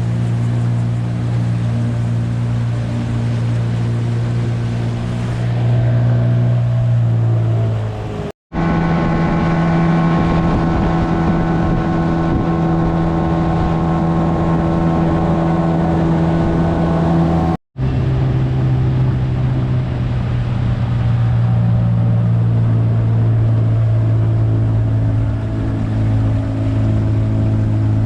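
Outboard motor of a small aluminium tinny running steadily at speed. The sound cuts out abruptly twice, and the stretch between the cuts holds a higher, steady engine pitch.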